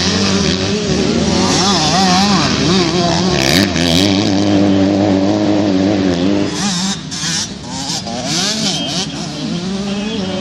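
Several motocross bikes racing past, their engines revving up and down through the gears. The loudest engines fade about seven seconds in, leaving fainter bikes further off.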